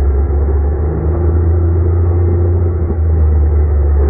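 UTV's engine running steadily while under way, a loud, even low drone with a faint steady tone above it.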